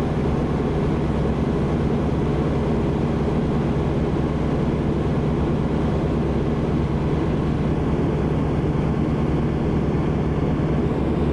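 Steady aircraft engine drone heard from inside the aircraft in flight, an unchanging low hum with a wash of noise over it.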